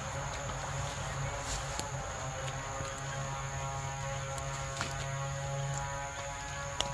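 A steady low hum with a thin, steady high-pitched whine above it, unchanging throughout, with a few faint ticks.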